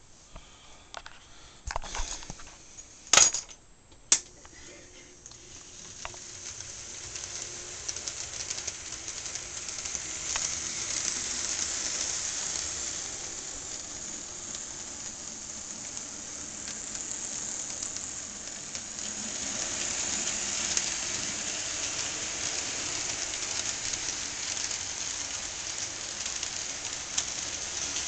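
Model freight train running on a layout track, pulled by two Penn Central GP38 model diesel locomotives: a steady crackling clatter of motors and wheels on the rails. It builds after about five seconds and swells twice as the train passes. A few sharp knocks sound in the first few seconds.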